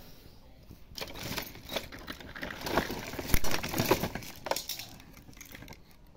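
Hands rummaging through a pile of scrap electronics and plastic bags: plastic crinkling and circuit boards and parts clattering against each other. It is busiest in the middle, with a sharp knock about three and a half seconds in.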